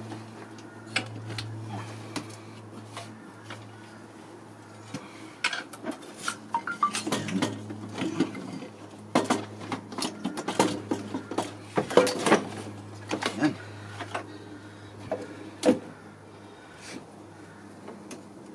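Metal engine parts and hand tools clinking and knocking as intake components are worked loose, in irregular clusters of sharp clicks, busiest through the middle. A steady low hum runs underneath.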